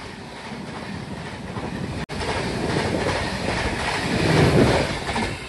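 A passing train rushes by close on the next track, wheels clattering over the rails and coaches whooshing past. It breaks off for an instant about two seconds in, then grows louder, loudest near the end.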